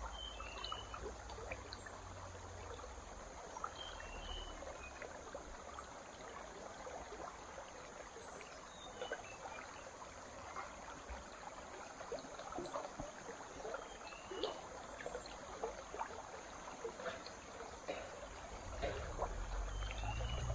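Faint trickling water with many small scattered clicks, and a short high chirp every few seconds. A low rumble comes in near the end.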